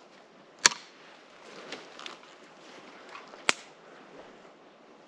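Movement through dry forest undergrowth: faint rustling, with two sharp snaps of dry twigs about three seconds apart.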